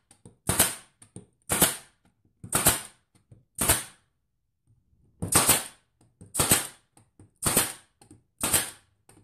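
Harbor Freight pneumatic brad nailer shooting brad nails into pallet wood, eight sharp shots about a second apart: four, a short pause, then four more.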